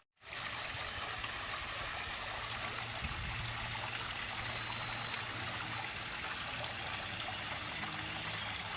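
Water running and trickling steadily over a garden pond waterfall, fading in at the start.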